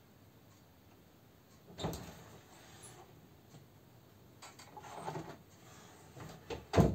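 A wooden interior door opening with a sharp click about two seconds in, followed by scuffing footsteps in slippers on a laminate floor and the door being shut, with a loud thump near the end.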